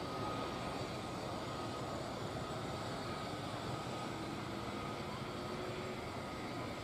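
Boeing CH-47F Chinook helicopter running on the ground, its turbines and rotors making a steady drone with a faint high whine.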